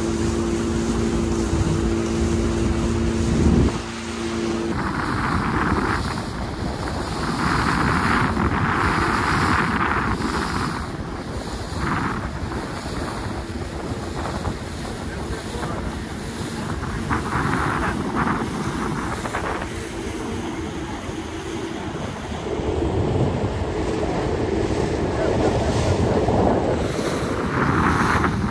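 A motorboat's engine running with a steady hum, cutting off about four seconds in. After that, wind buffets the microphone in gusts over water lapping against the hull.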